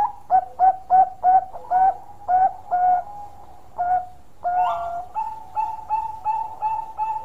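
Bangkok zebra dove (perkutut) singing its long cooing song. Short notes come quickly at first and then slow down, a longer note follows about four and a half seconds in, and then a fast, even string of short coos.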